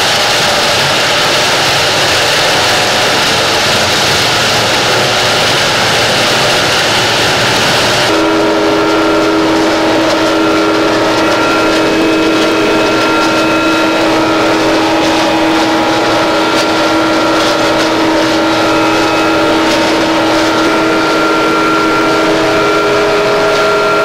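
Cameco two-row whole-stalk sugar cane harvester running as it cuts cane: a loud, steady machine noise full of hiss. About 8 seconds in it changes abruptly to a steadier hum with several held tones, as heard from inside the harvester's cab.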